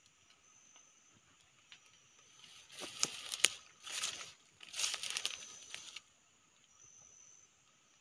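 Leaves and twigs rustling and crackling in three bursts in the middle, with sharp snaps among them, as someone pushes through dense undergrowth.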